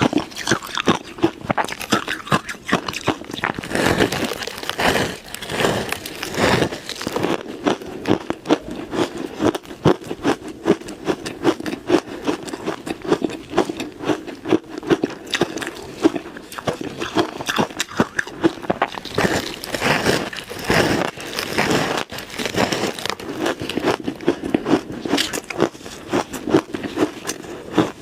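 Ice being bitten and chewed close to the microphone: a dense, continuous run of crisp crunches and crackles.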